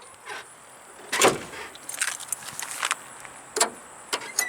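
Several clunks and knocks of a car's body hardware being handled, the loudest about a second in, with smaller ones after.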